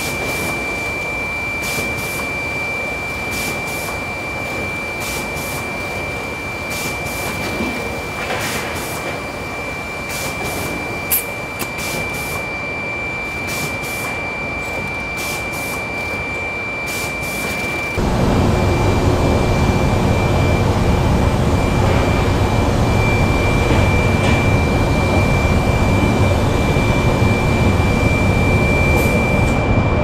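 Confectionery production-line machinery running, with a steady high whine and scattered light clicks. About eighteen seconds in, a louder low machine hum takes over.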